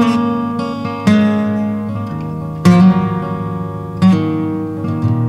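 Background music: an acoustic guitar strumming chords, a new chord struck about every second and a half and each left to ring out.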